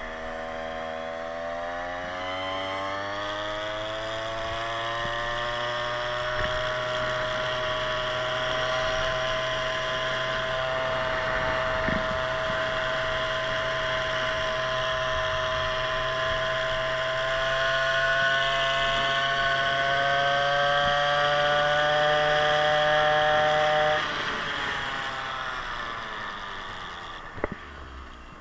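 A motorized scooter's 52cc big-bore two-stroke engine revs up over the first few seconds and then holds a high, steady pitch at riding speed, edging slightly higher. Near the end the throttle is let off: the sound drops abruptly and winds down in pitch as the scooter coasts, with a single sharp knock just before the end.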